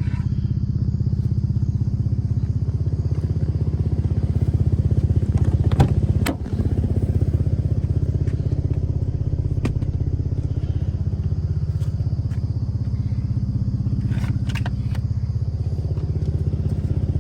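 Infiniti G37's 3.7-litre V6 idling steadily, with a few clicks and knocks over it, the loudest about six seconds in.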